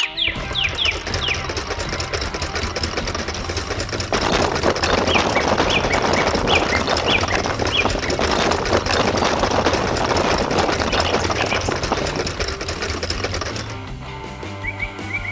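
Cartoon machinery sound effect: a fast mechanical rattle like a jackhammer, loudest from about four to twelve seconds in, over background music with a steady bass beat. Short falling chirps sound at the start and again around five to seven seconds in.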